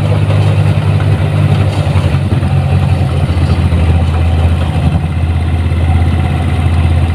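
Diesel engine of a 1550 rice combine harvester running steadily as the machine drives along, a deep, even hum whose note drops a little about two to three seconds in.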